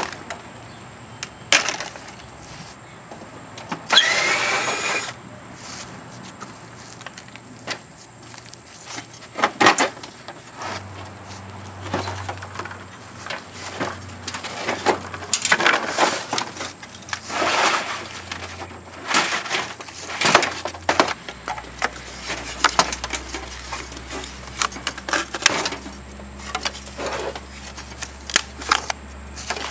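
Window air-conditioner unit being taken apart by hand for scrap: irregular metal knocks, clanks and rattles of parts being struck and pried loose, with a brief rising metallic squeal about four seconds in.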